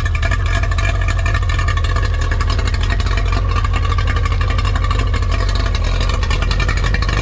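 Small boat's outboard motor running steadily at idle out of the water, fed cooling water from a hose. To its owner it sounds nice and smooth.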